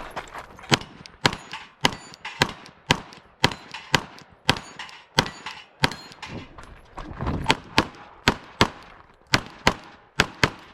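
Glock 17 9mm pistol firing a stage string: about twenty sharp shots, most roughly half a second apart, with a pause of nearly two seconds about two-thirds of the way through.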